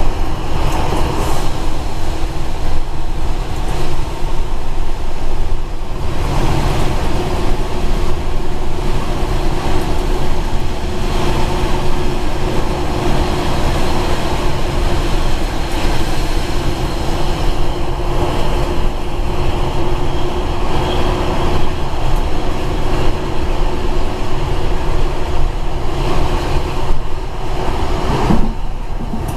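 Metre-gauge X305 diesel railcar running through a tunnel, heard from its front cab: a steady, loud rumble of engine and wheels on rail, with a held hum. The sound dips and changes near the end as the railcar comes out into daylight.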